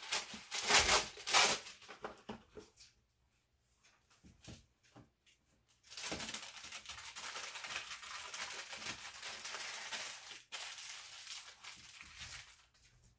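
Cut-Rite wax paper pulled from its box and torn off in a few loud rips about a second in, then crinkling steadily as a granola bar is wrapped in the sheet.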